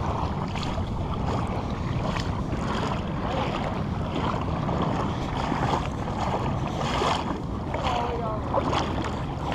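Wind buffeting the microphone over shallow bay water lapping, with scattered small splashes and clicks.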